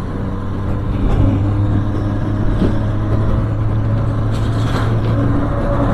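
Benelli TNT 300's parallel-twin engine running steadily while riding, its note growing a little stronger about a second in.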